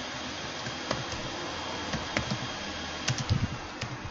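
Typing on a computer keyboard: a few scattered single keystrokes, then a quick run of several about three seconds in, over a steady hiss.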